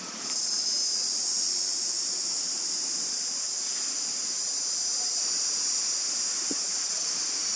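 Steady high-pitched chorus of insects, setting in just at the start and holding without a break.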